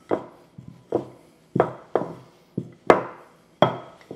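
A small wooden rolling pin knocks against a stone countertop about twice a second as it is rolled back and forth over a thin flour tortilla. Each sharp knock has a short ring.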